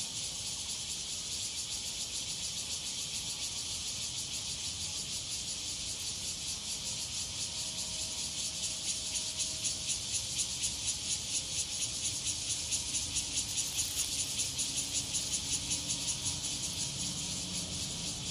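Cicadas buzzing with a steady high, hissing drone that takes on a rapid, regular pulsing about halfway through.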